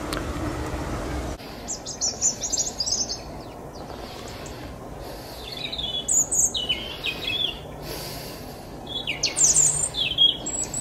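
European robin singing its autumn territorial song: three short, high, warbling phrases a few seconds apart. A steady low rumble runs under the first second or so and cuts off suddenly.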